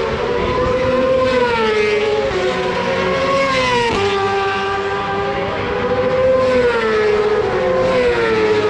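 Racing motorcycles running at high revs on the track, their engine pitch rising and falling with a sharp drop at a gear change about four seconds in.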